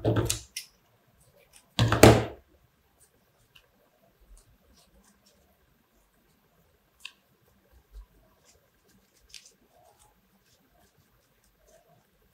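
Handling noise from small ribbon craft work at a table: two short rustling knocks in the first couple of seconds, then faint scattered ticks and rustles of fingers working grosgrain ribbon.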